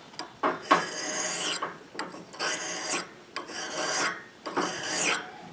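Steel ice auger blade stroked by hand across a sharpening abrasive, four scraping strokes with short pauses between them. The strokes are taking the burr, the curled-over wire edge, off the blade's flat back side.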